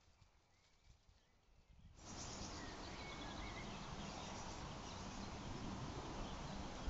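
Outdoor ambience picked up by a trail camera's microphone: faint for about two seconds, then a louder steady rushing hiss starts abruptly, with a few short faint bird chirps soon after.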